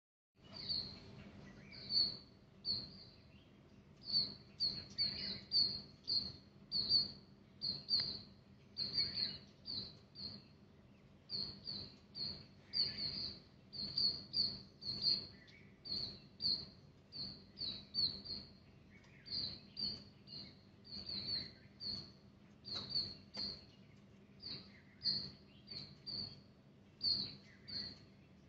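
A small bird chirping over and over, short high chirps at about the same pitch coming one to three a second, over a faint steady hum.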